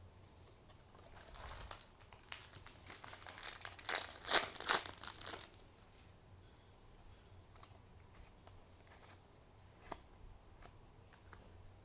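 Foil booster-pack wrapper crinkling and tearing open, a dense crackly run for about four seconds, loudest near the middle, followed by a quieter stretch with a single click.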